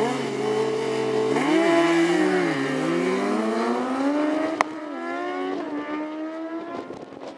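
Two sport motorcycles held at high revs on the start line, then launching and accelerating hard down the drag strip. Engine pitch climbs and drops back with each upshift and fades as they pull away, with one sharp click about four and a half seconds in.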